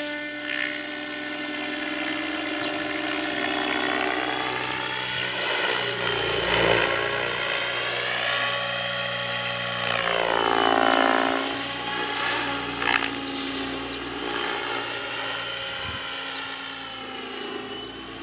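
Radio-controlled model helicopter in flight: a whining rotor and motor note that keeps rising and falling in pitch as it manoeuvres, dropping sharply and climbing back about ten seconds in.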